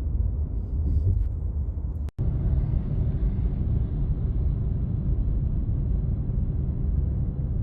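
Steady low rumble of a car driving, the road and engine noise heard from inside the cabin. The sound cuts out for an instant about two seconds in.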